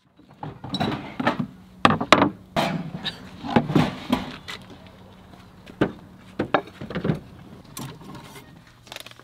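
Knocks, clicks and thuds of gear being handled at a pickup's tailgate, with a wooden drawer sliding out of the truck bed. The knocks come thick in the first few seconds, then more sparsely, over a faint steady low hum.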